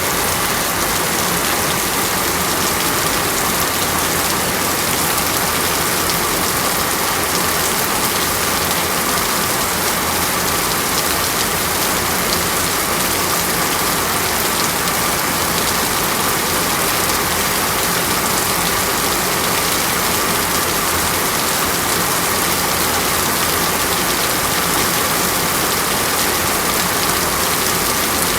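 Water falling steadily, an even, unbroken hiss of rain-like noise that does not change.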